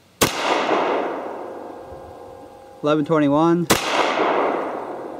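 Two shots from a Beretta 84 Cheetah .380 ACP pistol, about three and a half seconds apart. Each sharp report rings on and fades over a couple of seconds.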